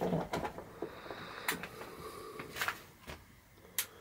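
A few sharp clicks and knocks, spread out, from a ring light and its stand being handled and adjusted, over faint rustling.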